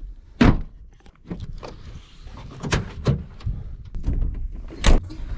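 A truck camper's door and latches being worked: a handful of sharp clacks and thuds, the loudest about half a second in and near the end, with lighter clicks between over a low rumble.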